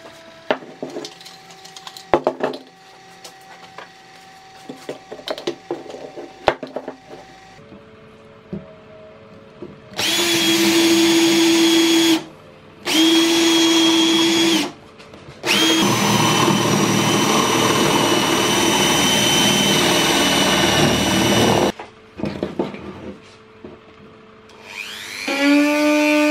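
Light clicks and knocks of pallet wood being handled, then a power drill boring into a pine handle block in three runs: two short ones of about two seconds and a longer one of about six. Near the end a rotary tool spins up with a rising whine.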